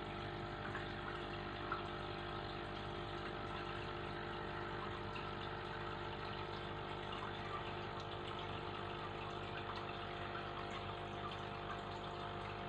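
Aquarium filter pump running with a steady hum over a constant wash of moving water.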